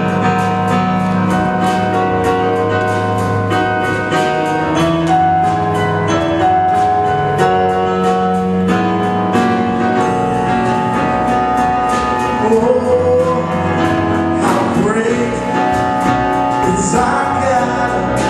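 Gospel music: an instrumental introduction of held chords over a steady beat, with singing coming in about twelve seconds in.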